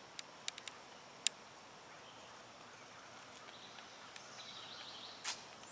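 Faint woodland ambience: a steady low hiss of open air with faint high bird calls, and a few sharp short ticks in the first second and a half.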